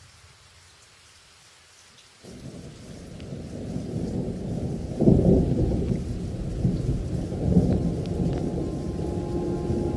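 Thunder rumbling over light rain: a long roll that starts suddenly about two seconds in, peaks sharply about five seconds in and keeps rolling. Held musical tones come in near the end.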